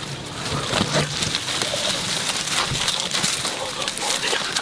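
Leaves and branches rustling and twigs crackling as a man pushes and crawls through dense brush, with a brief low vocal grunt about a second in.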